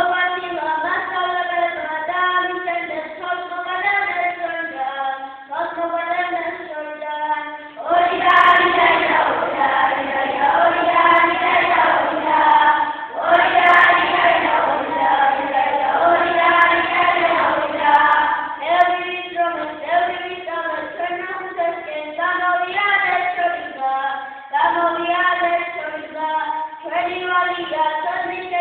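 A group of young children singing together, in phrases with short pauses between them; the singing grows louder and fuller from about eight seconds in until about eighteen seconds in.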